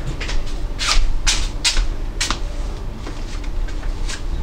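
Scattered short knocks and rustles from a person getting up from an office chair and moving about: a handful in the first two and a half seconds and another near the end, over a steady low hum.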